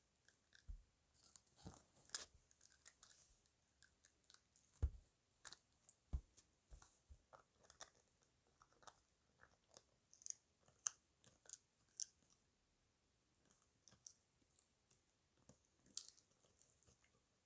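A puppy chewing and crunching a dried chicken foot: irregular crisp crunches and bites throughout, with a louder crunch about five seconds in.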